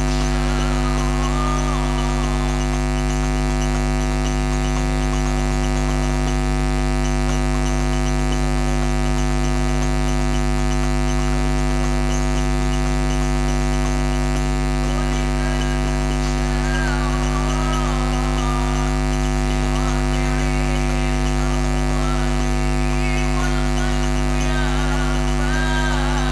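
Loud, steady electrical hum and buzz through the sound system: a constant low drone with many overtones. Faint wavering voices come through in the second half.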